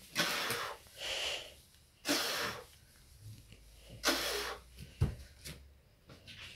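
A man breathing out hard in short, forceful bursts with the effort of one-arm push-ups: four sharp exhales, the last after a longer pause. A single brief knock sounds about five seconds in.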